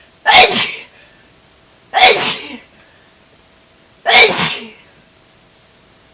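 A person sneezing three times in a row, about two seconds apart: sharp, loud, spraying sneezes, each over in about half a second.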